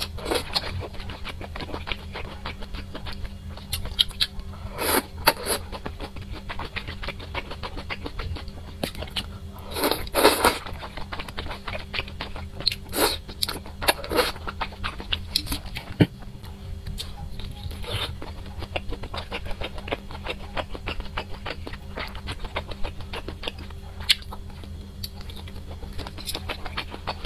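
Close-miked eating sounds: wet chewing and lip smacking on wide glass noodles from a spicy hot-pot broth, with a few louder slurps as noodles are drawn in. A steady low hum runs underneath.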